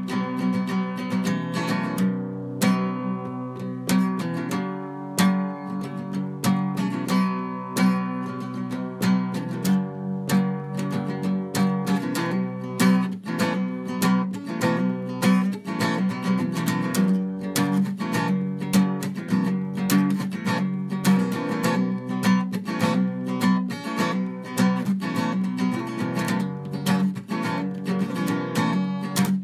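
Background music: acoustic guitar, strummed and picked, with many quick notes.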